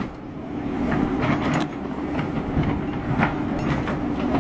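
JCB backhoe loader's diesel engine running steadily as its bucket crushes a pile of car audio speaker boxes and amplifiers, with a few sharp cracks and crunches of breaking wood and plastic.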